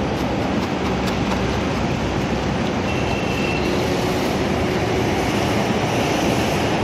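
Steady road traffic noise: a constant, even rumble and hiss of passing vehicles with no single event standing out.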